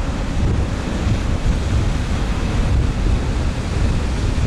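Wind buffeting the microphone with a heavy, gusty low rumble over the steady rush of breaking surf.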